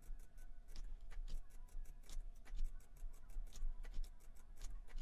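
Computer mouse button clicking rapidly, several sharp clicks a second at uneven spacing, over a faint low hum.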